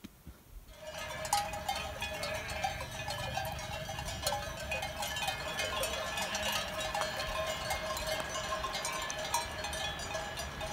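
Bells on a flock of sheep clanking and ringing together without a break, starting about a second in.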